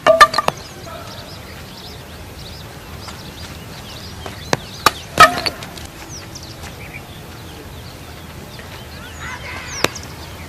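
Cricket ball hitting the wooden stumps with a sharp, ringing clatter, at the start and again about five seconds in, each time after a lighter knock or two. Birds chirp faintly between the hits.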